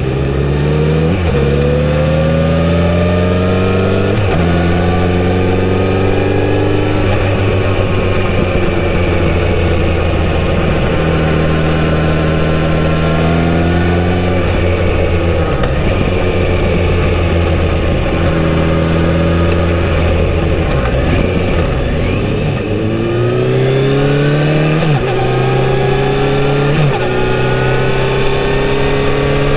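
Kawasaki Z900RS inline-four engine pulling through the gears on the road: its pitch climbs and drops sharply at two upshifts in the first few seconds, then holds steady at cruising speed. Past the middle it eases off, then climbs through two more upshifts near the end.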